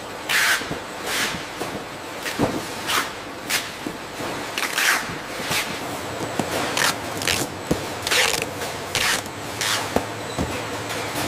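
Cardboard cartons being handled, taped and slid along a roller conveyor on a packing line: about a dozen short scraping swishes, roughly one every half second to second, with a few sharp knocks, over a faint steady machine background.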